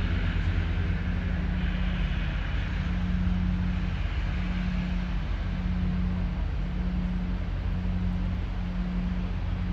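Diesel locomotive engine running at low revs: a steady low drone with a slow, regular throb about once a second.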